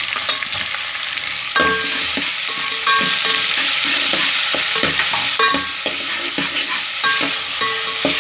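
Chopped onions frying in hot oil in a steel pot, sizzling steadily. A steel ladle stirs them, scraping and clinking against the pot with a few short metallic rings.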